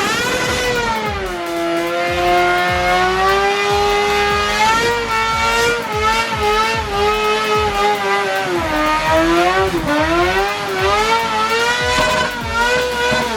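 Gutted Mitsubishi Eclipse's engine, run without an exhaust, held at high revs as the car is thrashed around. The pitch wavers and dips briefly a couple of times near the middle, and the engine is very loud.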